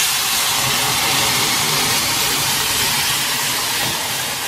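Boiled dal poured into a kadai of hot tempering oil and spices sizzles loudly. The hiss starts suddenly and slowly dies down.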